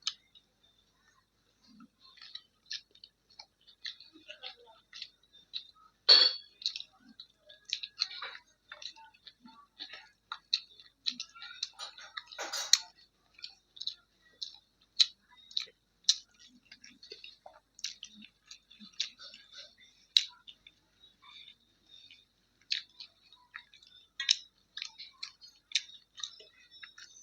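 A person chewing and smacking through a mouthful of roti with kadhi pakoda and potato bhujiya: a steady run of irregular short wet clicks, with sharper, louder ones about six seconds in and again near the middle.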